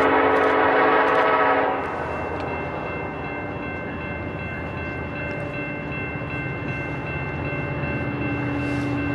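Norfolk Southern freight train's lead locomotive, an EMD SD70ACe, sounding its horn in a long blast that cuts off about two seconds in. After it the diesel locomotives rumble steadily and grow slowly louder as the train approaches, with a faint steady high tone above.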